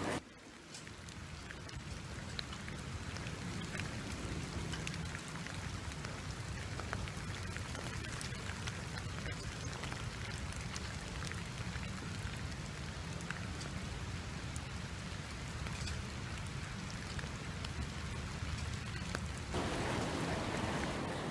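Steady rain falling on wet pavement: a dense patter of small drop ticks over a low rumble.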